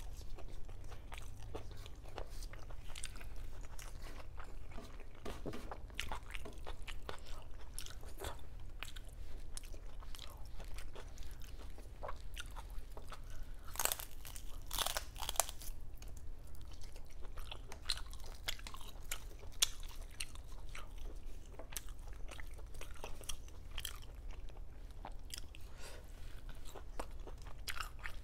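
Close-up crunching and chewing of crispy deep-fried pork belly (lechon kawali), its crackling skin giving many short sharp crunches, with a louder run of crunches from a bite about halfway through.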